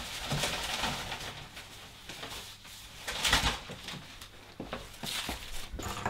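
Newspaper rustling and crumpling as it is folded up and laid out, in a few irregular swishes, the loudest about three seconds in.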